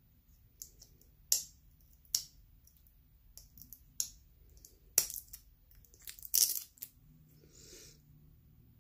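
Small plastic jar of loose glitter being tapped and handled: about a dozen irregular sharp clicks and taps, with a short soft rustle near the end.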